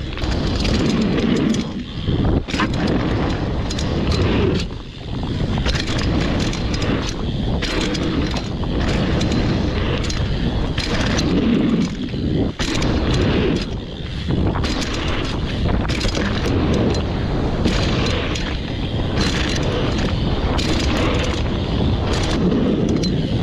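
Downhill mountain bike ridden over rough trail: a continuous rumble of tyres on the ground with frequent knocks and rattles from the bike.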